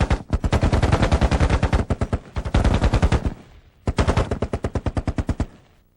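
Automatic machine-gun fire in three long, rapid bursts with short breaks between them.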